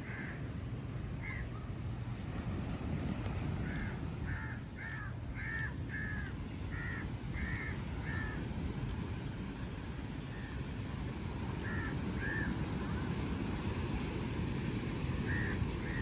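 A crow cawing in short repeated calls, a quick run of about two a second in the middle and scattered calls later, over a steady low background rumble.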